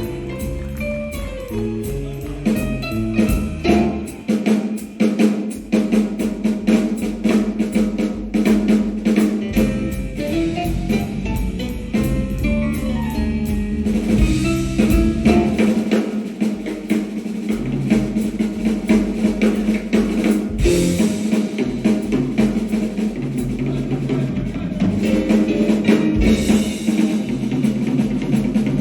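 Live jazz combo playing, with the drum kit busy and up front: fast snare rolls, rimshots and bass drum hits over a steady low note and moving bass and keyboard lines.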